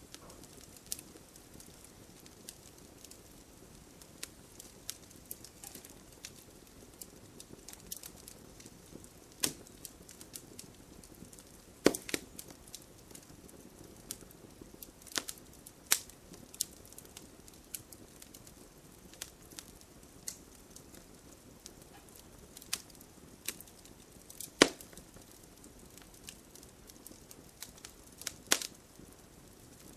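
Wood fire crackling: scattered sharp pops and snaps over a low steady hiss, with the loudest pops about twelve seconds in and near twenty-five seconds.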